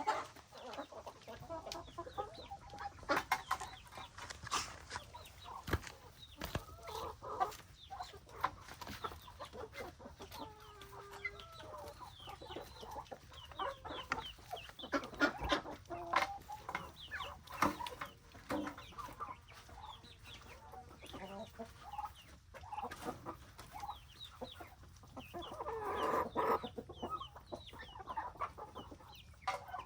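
Chickens clucking and calling while they feed, with many short sharp taps mixed in throughout and a louder burst of calling near the end.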